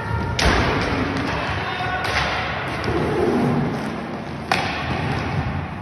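Inline hockey play in a sports hall: sharp knocks of stick and puck and thuds off the boards, three loud ones about half a second, two seconds and four and a half seconds in. They ring out in the hall over a steady background din.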